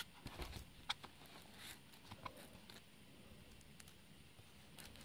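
Faint scattered clicks and light taps of a handheld sat nav and its cardboard packaging being handled, mostly in the first three seconds, otherwise near silence.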